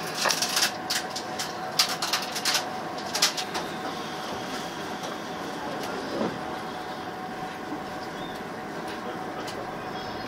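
185 series train standing at the station before departure: a run of sharp clicks and knocks in the first few seconds, then a steady hum and background noise.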